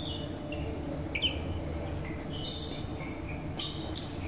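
Athletic shoes squeaking on the court floor as badminton players move, short high chirps several times, with two sharp hits about a second in.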